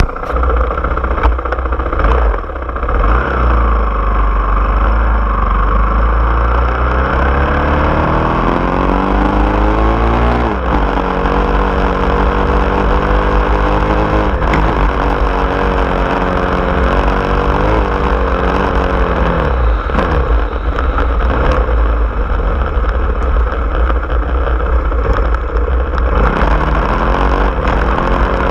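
Small off-road vehicle engine driving along a dirt trail, its pitch climbing as it speeds up and dropping sharply several times before climbing again, over a heavy low rumble.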